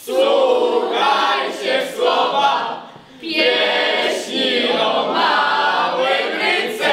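A group of teenagers singing together, in two phrases with a short break about three seconds in.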